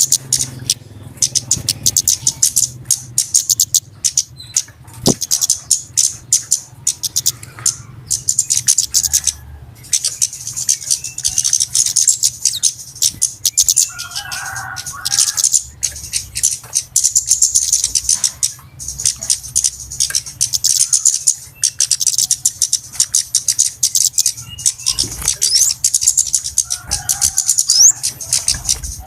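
Flowerpeckers (cabe-cabean) chattering: a dense stream of rapid, very high-pitched ticking chips in bursts with short pauses, played as a bird-trapper's lure call.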